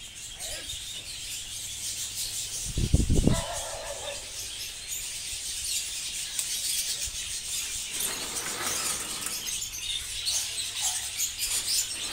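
A large flock of caged budgerigars chattering and chirping, growing louder. A heavy low thud about three seconds in.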